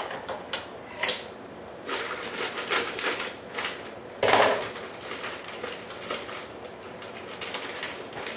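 Things being handled on a kitchen counter: a run of small clicks and knocks with stretches of rustling, and one louder clatter about four seconds in.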